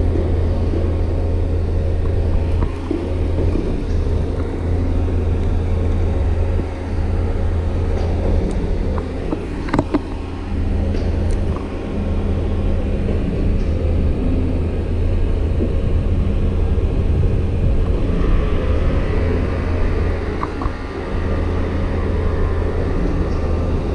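Steady low mechanical rumble of city background noise, with a few faint sharp clicks about ten seconds in.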